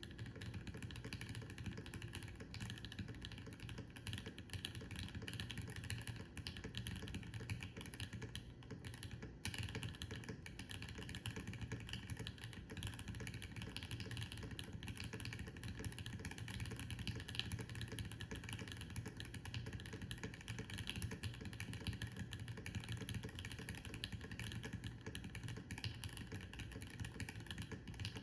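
Steady fast typing on a Brutal65 V2 custom mechanical keyboard with lubed, filmed Gateron Milky Yellow linear switches and GMK Fuji keycaps, foam in the plate and case: a dense run of soft keystroke clacks, with a brief pause about nine seconds in.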